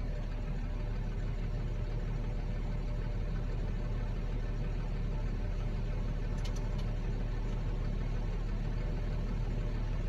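New Holland T7040 tractor's six-cylinder diesel engine running steadily, heard from inside the cab.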